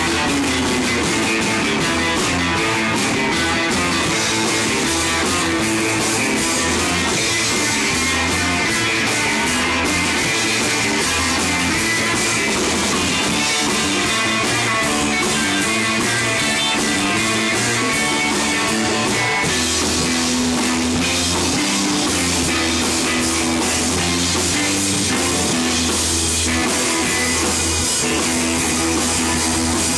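Live rock band playing: drum kit, electric guitars and hand drums.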